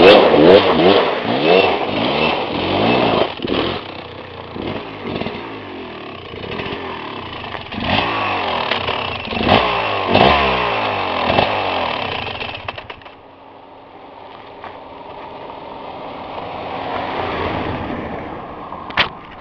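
KTM 250 two-stroke enduro motorcycle engine revving hard and repeatedly, its pitch sweeping up and down as the rear wheel spins in the dirt. It drops back after a few seconds, revs hard again partway through, goes quieter, then grows steadily louder as the bike comes close, with a sharp knock just before the end.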